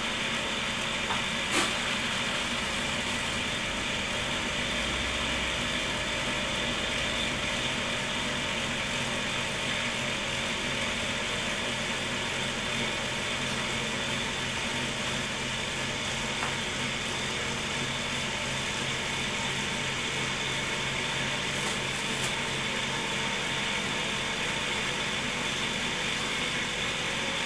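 Cotton candy machine running steadily, its DC motor spinning the head with a steady hum and hiss. One sharp click about a second and a half in.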